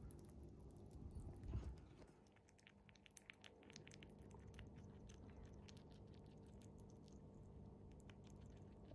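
A Siberian chipmunk chewing soft small-animal jelly, a quick run of fine, wet, smacking clicks, close up. There is a soft low thump about one and a half seconds in.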